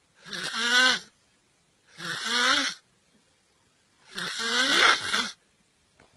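A person snoring: three snores about two seconds apart, each with a pitch that rises as it goes.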